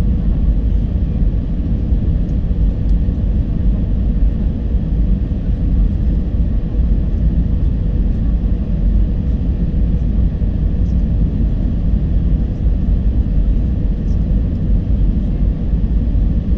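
Cabin noise of an Airbus A320-214 on approach, heard from a window seat by the wing: a deep, steady rumble of its CFM56 turbofan engines and the air rushing past, with a faint steady whine.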